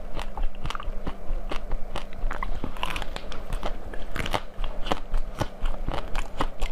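Close-miked biting and chewing of crunchy food, many sharp crunches in quick succession.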